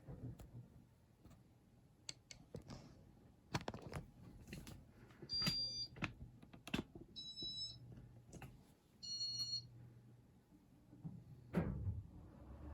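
Three short electronic beeps about two seconds apart from a Casablanca ceiling fan's control, among light clicks and handling knocks, with a louder knock near the end.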